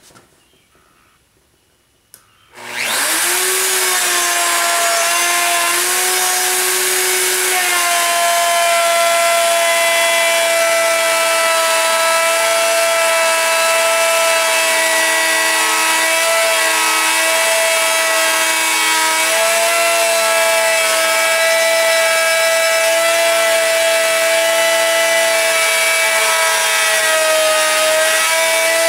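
Handheld electric router with a Whiteside pattern bit switched on about two and a half seconds in, spinning up quickly to a loud, steady whine. It then trims end-grain oak along a template, its pitch dipping slightly now and then as it cuts.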